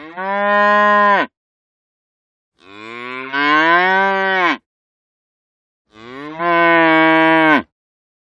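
Cow mooing three times, each moo lasting one to two seconds, the middle one rising in pitch and then falling away at its end.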